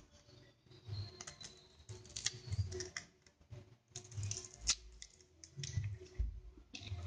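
Hands handling banana leaves while wrapping parcels: irregular light clicks, taps and rustles, with dull low thumps every second or so.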